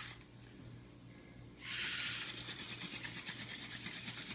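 Mullein hand-drill spindle spun back and forth between the palms in the notch of a dry willow hearth board: a fast, scratchy wood-on-wood rubbing that stops for about a second and a half near the start, then goes on steadily. The spinning is at light pressure, grinding up brown dust in the notch on the way to a friction-fire ember.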